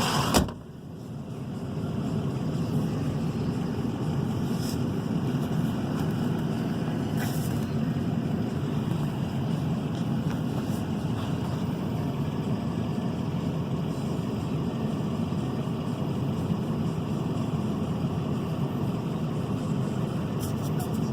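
A vehicle engine idling, a steady low hum that dips briefly just after the start and then holds level.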